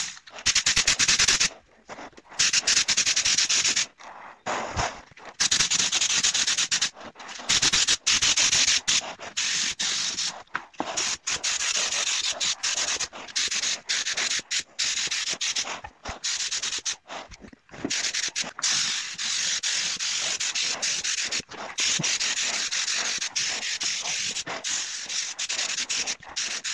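Compressed-air gravity-feed spray gun spraying paint: a hiss in bursts of one to several seconds that start and stop abruptly as the trigger is pulled and released between passes.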